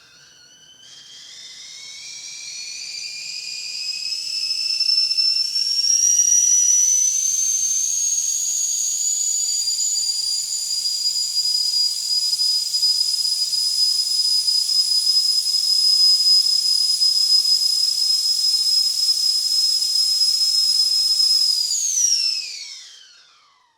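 Whistling kettle shrilling as the water boils: the whistle swells and climbs in pitch for the first several seconds, then holds a steady, piercing chord of several high tones. Near the end it slides down in pitch and dies away.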